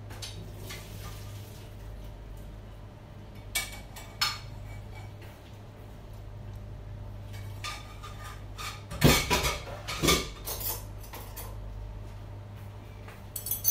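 Kitchen utensils clinking and scraping against a small saucepan and a plate as food is served out of the pan: a couple of sharp clinks about three and a half seconds in, then a cluster of louder knocks around nine to ten seconds in.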